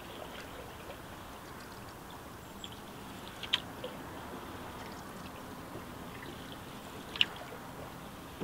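Water trickling and lapping along the hull of a wooden cedar strip canoe being paddled, with scattered small drips and two sharp ticks, about a third and again near the end of the way through.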